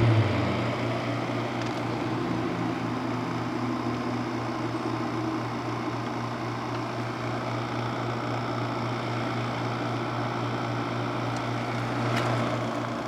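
Haier HWR06XC3-T 6000 BTU window air conditioner running: a steady low compressor hum under the even rush of its fan.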